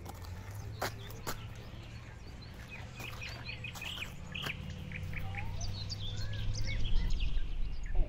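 Small birds chirping many times in quick, short notes, over a steady low hum.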